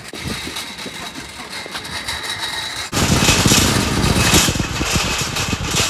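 Wire shopping trolley rolling over car-park asphalt, its basket and wheels rattling hard. It gets much louder about three seconds in as it speeds up.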